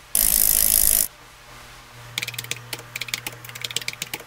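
A loud burst of hiss lasting about a second, then, about two seconds in, a rapid run of keyboard-typing clicks over a low hum: a typing sound effect for text being typed out on screen.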